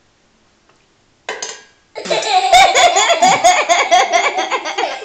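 Young child laughing hard, a long run of high-pitched belly laughs starting about two seconds in, after a short quiet.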